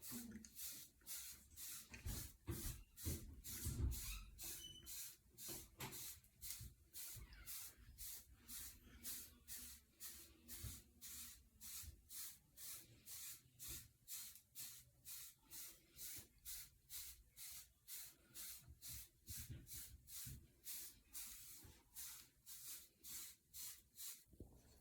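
A wave brush stroking through short hair in a steady rhythm of about two strokes a second, each stroke a faint bristly swish.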